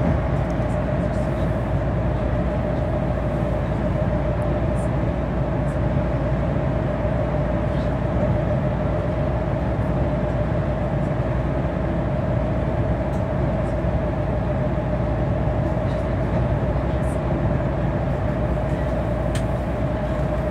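Interior of a MAN shuttle bus cruising at steady speed through a tunnel: a constant drive and road rumble with one steady hum held throughout.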